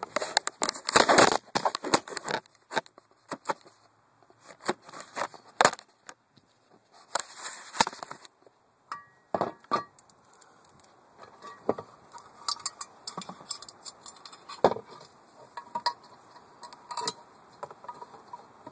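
Irregular metallic clinks, taps and scrapes of hands working a steel control cable and its Z-shaped end fitting into a walk-behind lawn mower's drive linkage.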